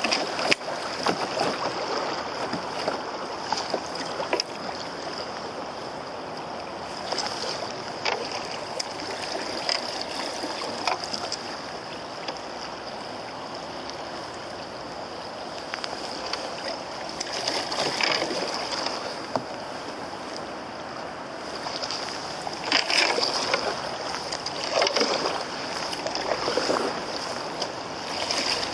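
Choppy river water splashing and lapping against the hull of an open canoe, with louder splashes now and then.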